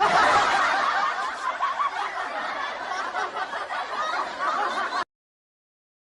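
Recorded laughter sound effect, lasting about five seconds and cutting off abruptly.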